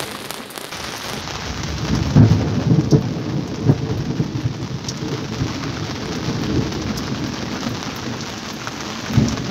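Steady rain hissing down on the water, with a roll of thunder. The thunder starts about two seconds in with several sharp cracks, rumbles on for several seconds as it fades, and swells again briefly near the end.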